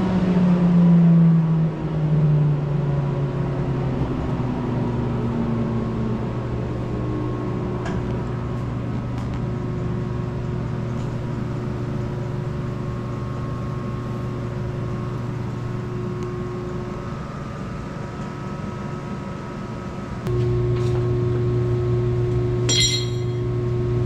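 Steady hum of an electric fan motor, with a falling whine over the first few seconds as it slows. About twenty seconds in, a louder hum starts up, and a few light clicks come in between.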